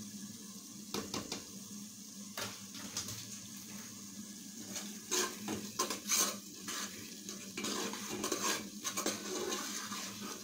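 A metal spoon knocking and scraping against an aluminium pot while stirring a frying tomato stew base, over a steady sizzle. The knocks begin about a second in and come thickest in the middle.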